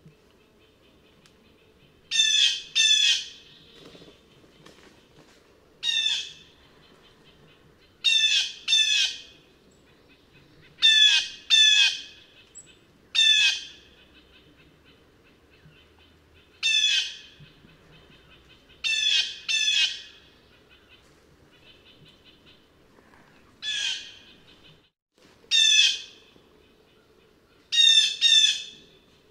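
Blue jay calling: short jay calls repeated every two seconds or so, some single and some in quick pairs, about fifteen in all.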